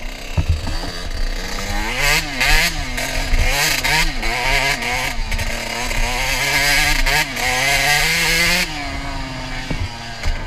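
Dirt bike engine revving up and down under throttle as it climbs a gravel track, its pitch rising and falling repeatedly. A loud rushing hiss rides over it from about two seconds in and drops away near the end.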